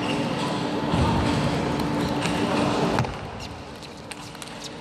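Arena crowd applauding and cheering for about three seconds, then cut off suddenly. After that come a few sharp clicks of a table tennis ball off bats and table in a rally.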